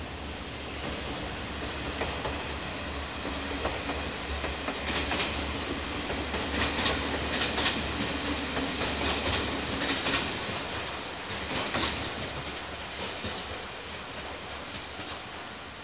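A red local passenger train running past on the far tracks, its wheels clacking over rail joints. It grows louder toward the middle and fades as it moves off, over a steady low hum.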